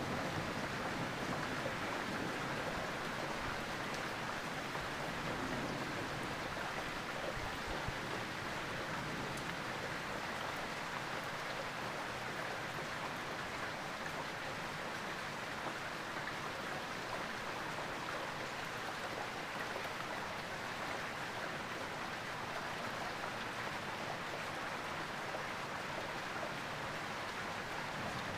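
Steady rain falling during a thunderstorm, an even hiss that holds level throughout.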